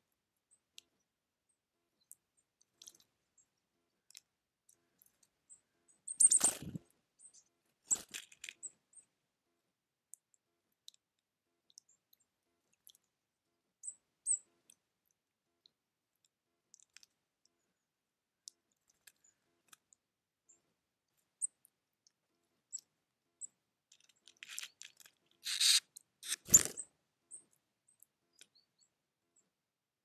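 Blue tit moving about in a shallow, stony bird bath: two short splashing, rustling bursts, one about six seconds in and a longer one near the end, between scattered faint ticks.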